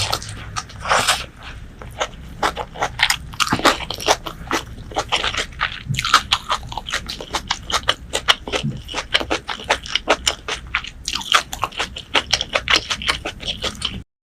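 Close-up eating sounds: a person biting and chewing crunchy food, with rapid crackling crunches several times a second over a low hum, cutting off suddenly near the end.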